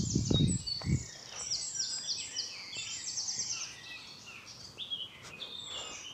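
Woodland songbirds singing, several short, rapid repeated high phrases overlapping. A few low thuds in the first second.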